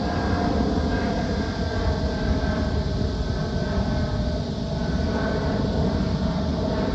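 Jet engines of a Boeing 757-200 climbing out after takeoff: a steady rumble with faint whining tones that slowly fall in pitch.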